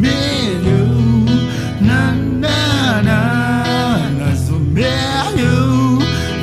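Pop song: a man singing a "na na na" refrain with held, gliding notes over a steady instrumental backing.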